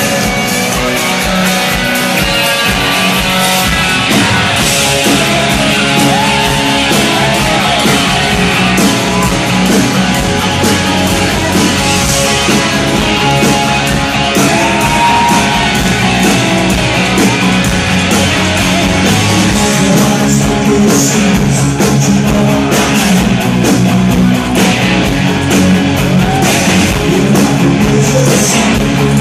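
Live rock band playing loud: electric guitar and drums, with a singer's voice coming in at times.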